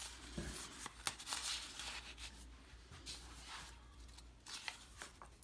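Faint rustling and sliding of paper and card stock: a journaling card pushed back under a paper belly band in a handmade paper journal and a page turned, with a few light taps.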